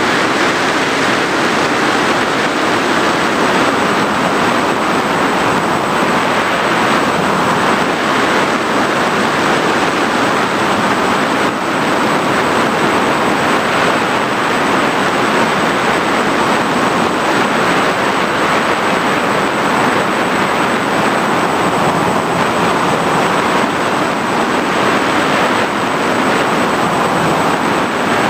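Steady rushing drone of an FPV aircraft's electric motors and propellers mixed with wind noise, heard from the aircraft's own onboard camera in continuous flight.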